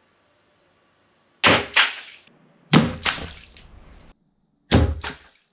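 Crossbow pistol shot bursting a water-filled balloon in front of a target: a sharp crack, then a second hit about a third of a second later, dying away. The shot is heard three times, each time cut off suddenly.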